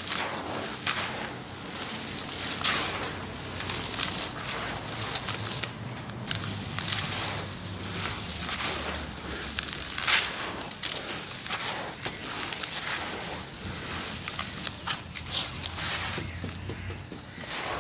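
Dry, crumbled cement-and-sand grit sifted through hands and pouring into a plastic bucket: a dense, irregular gritty crackle and patter of falling grains and small stones.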